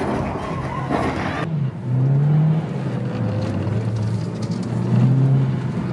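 Broad outdoor noise with a few knocks, then a sudden cut about a second and a half in. After the cut, a car engine is heard from inside the cabin, its note rising, falling and holding as the throttle changes.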